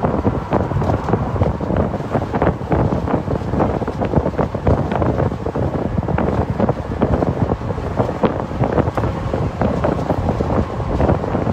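Loud, gusty wind buffeting a phone microphone in an open-top convertible on the move.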